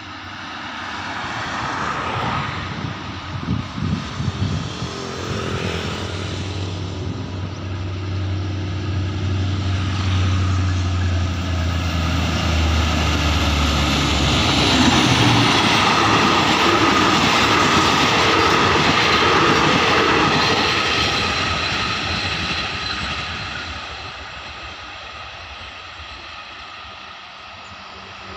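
Diesel locomotive hauling a passenger train past: its engine drone and the wheels running on the rails grow louder, peak about halfway through, then fade as the train moves away.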